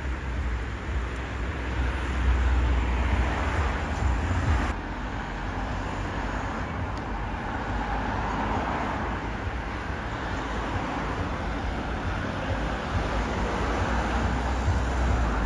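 Road traffic: cars driving past on a two-lane road, a steady noise of tyres and engines. A strong low rumble in the first few seconds eases off about five seconds in.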